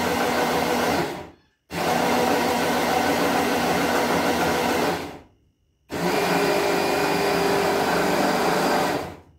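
Electric hand-blender chopper (rondo) motor running as it grinds granulated sugar into powdered sugar. It is worked in short bursts: it stops about a second in, runs again for about three seconds, pauses briefly, then runs another three seconds and cuts off near the end. The pauses rest the motor so that it does not burn out.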